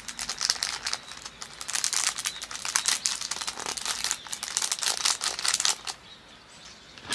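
A paper packet of powdered medicine crinkling and rustling in a rapid crackle as it is squeezed and shaken to empty the powder onto a tin of dog food. The crinkling dies down near the end.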